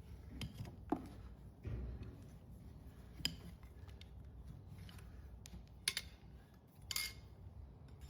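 Farrier's tools cutting into an overgrown horse hoof: about four sharp snaps a second or two apart.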